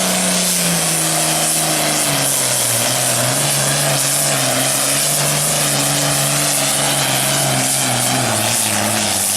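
Turbocharged diesel engine of a 1973 International 1066 puller running hard under full load during a pull, its note sinking slowly as the engine lugs down.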